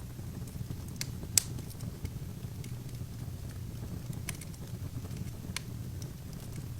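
Wood fire burning in an open fireplace: a steady low rumble of the flames with irregular sharp crackles and pops of the burning logs, the loudest pop about a second and a half in.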